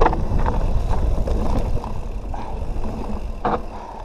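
Canyon Nerve mountain bike rolling along a trail, heard through a GoPro's microphone: a steady low rumble of wind and tyres with scattered rattling clicks from the bike, easing off near the end as it slows.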